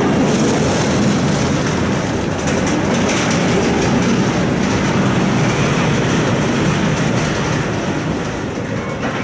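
Ultra Twister roller coaster train running along its steel pipe track: a steady rumble of wheels on the rails, easing slightly near the end.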